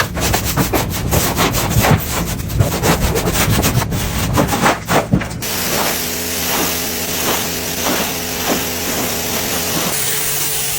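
Brush scrubbing on a dirty vehicle surface, with rapid, irregular strokes. After about five seconds it gives way to a steadier rubbing noise with a stroke about every half second.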